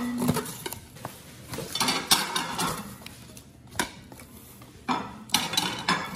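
Ceramic Christmas plates knocking and clinking against each other and the box while being unpacked, with cardboard packing inserts rustling and scraping. It comes in irregular clusters of short knocks and scrapes.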